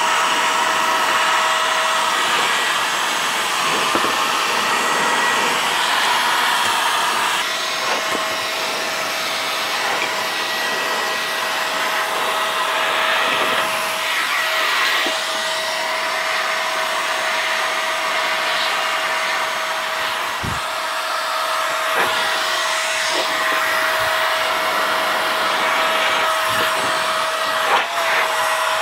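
Small 24 V centrifugal turbine blower (70 mm, about 35,000 RPM) running at speed: a loud rush of air with a steady whine. A few light knocks here and there.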